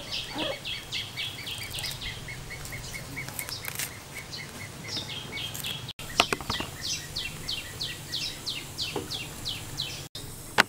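A small bird calling a fast series of short, falling chirps, about three to four a second, with a few sharp clicks among them.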